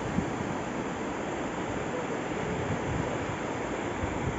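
Steady wash of sea surf breaking on a sandy beach, with wind buffeting the microphone.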